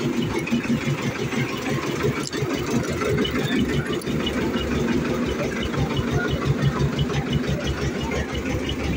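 Small engine of a narrow-gauge toy train running with an even, rapid chugging pulse.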